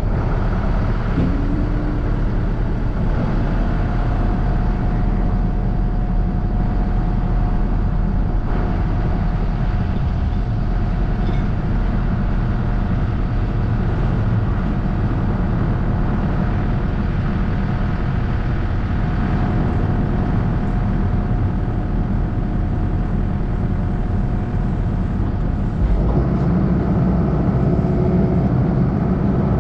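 Heavy diesel engine running steadily, with a thin steady whine over it from a few seconds in. About 26 seconds in, the engine note changes and grows slightly louder.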